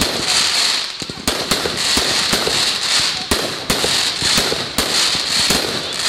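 Aerial fireworks bursting overhead: sharp bangs about two a second at uneven spacing, over a steady hiss.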